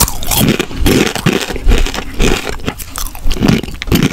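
Close-miked crunching and chewing of Takis rolled corn tortilla chips: a run of loud, irregular crunches.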